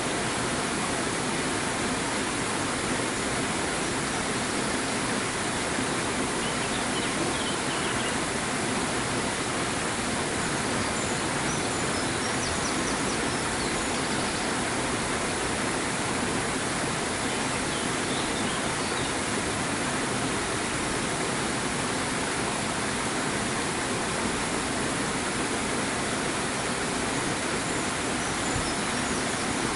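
Steady rushing of flowing water, like water pouring through a weir, with faint high chirps of small birds a few times.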